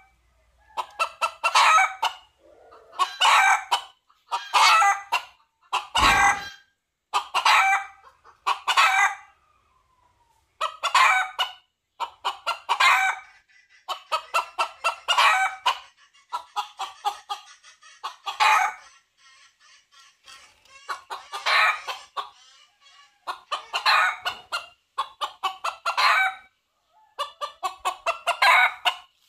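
Red junglefowl calling in a long series of short bursts, each about a second long and made of rapid clucking pulses, repeated every second and a half or so. A low thump sounds once about six seconds in.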